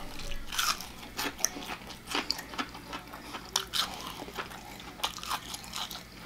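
Close-up crunching bites and chewing of crispy deep-fried, breaded pork chop, with a run of irregular crackly crunches.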